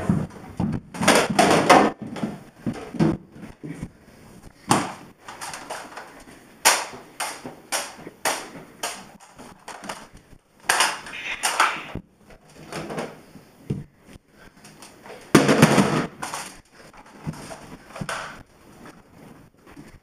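Irregular knocks, bumps and rustles, a few of them loud and lasting about a second, from people and a handheld camera moving about a house.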